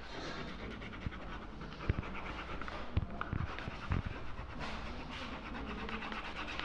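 Crayon or pastel being rubbed back and forth on paper in quick scratchy strokes, with a few short knocks.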